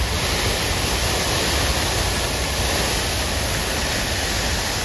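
Fountain water spraying and splashing down in a steady hiss.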